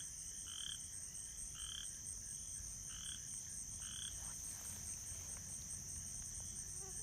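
Frogs croaking in short calls, about one a second, over a steady high-pitched chorus of crickets; the croaking stops a little after halfway.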